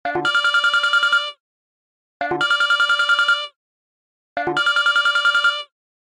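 Samsung phone ringtone ringing three times. Each ring is a short opening note followed by a fast trill of about ten pulses a second, lasting just over a second, with about a second's gap between rings.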